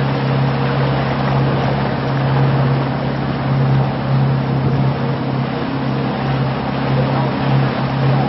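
Boat engine running steadily: an even low hum with a noisy hiss over it that does not change.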